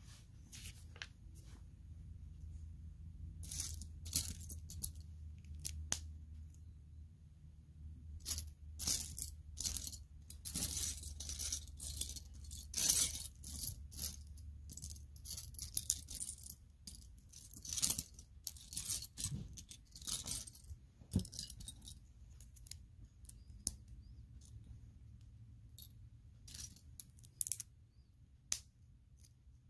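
Loose plastic Lego pieces clicking and rattling against each other as a hand sifts through a pile of them and fits bricks together. The clicks come thick and fast through the middle and thin out to a few near the end.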